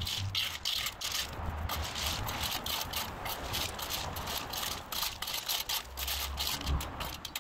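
A rake dragging and spreading rounded landscape stone over weed barrier fabric, the stones clattering and knocking against each other in a quick, irregular series of clicks.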